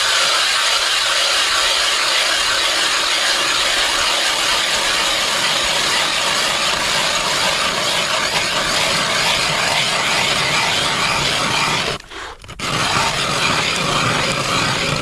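Hand-cranked ice auger grinding and scraping steadily as its blades shave down through thick lake ice while drilling a test hole to check ice thickness. The sound stops for about half a second around twelve seconds in, then resumes.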